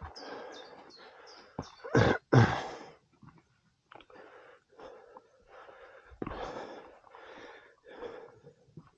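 A climber breathing hard from exertion, in short noisy breaths, with two loud exhales about two seconds in.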